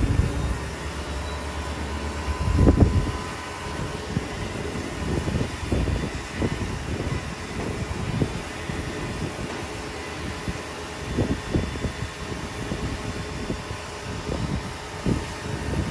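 Wind buffeting the microphone in irregular low gusts, one strongest about three seconds in, over a steady mechanical hum from the running rollback tow truck as it unloads a vehicle down its tilted bed.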